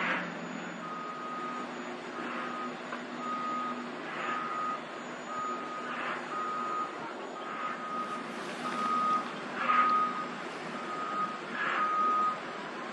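Reversing alarm on a Manitou telehandler beeping at one steady pitch, about three beeps every two seconds, starting about a second in, over the steady running of the machine's diesel engine.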